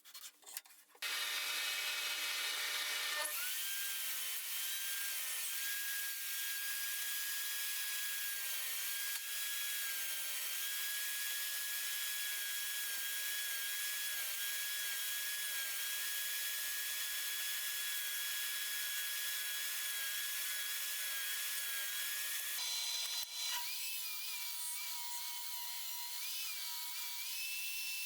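An electric power tool runs while working wood: a steady motor whine under a loud hiss of wood being cut or sanded. It starts about a second in, and about 23 s in the pitch of the whine drops and then wavers as the load changes.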